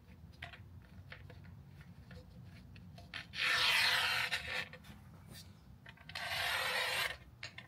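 Two rasping scrapes of about a second each, a few seconds apart, with a few light clicks before them: hardware being slid and scraped along a powered running board as it is readied for mounting.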